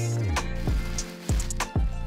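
Background music with low drum hits under held notes.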